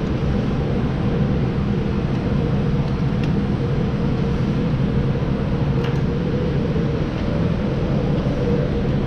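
Steady mechanical hum of running machinery or ventilation, unchanging throughout, with a couple of faint light clicks of small parts being handled.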